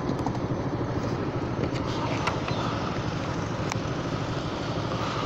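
Honda Forza 300 scooter's single-cylinder engine idling steadily while the scooter stands still.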